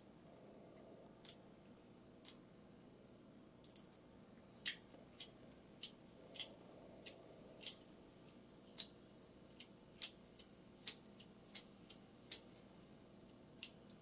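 Fingertips and nails pressing, tapping and squeezing a soft, water-filled Care Bears Mashems squishy toy, making short crisp clicks and ticks at an uneven pace, more often in the second half, for an ASMR-style sound demonstration.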